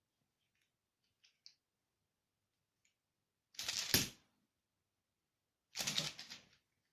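Two short clattering, scrabbling bursts about two seconds apart, with a few faint ticks before them: a kitten leaping at a swung toy and landing.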